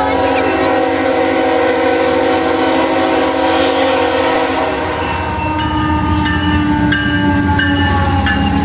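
Diesel locomotive's air horn blowing one long chord as it leads a passenger train past a grade crossing, over the rumble of the locomotives' engines. The horn is loudest over the first half, then carries on weaker and slightly lower in pitch as the locomotive goes by. A crossing bell rings in quick strokes in the second half.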